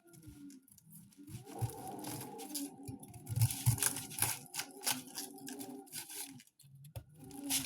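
Kitchen knife cutting the stem out of a head of cabbage: irregular crisp crunching and tearing of the leaves with scattered clicks of the blade, easing off about six and a half seconds in.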